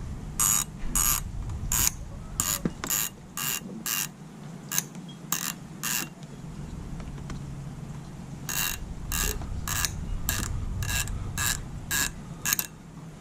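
Hand ratchet tool clicking in a series of short strokes about half a second apart, about eleven strokes, then a pause of a couple of seconds, then about eight more.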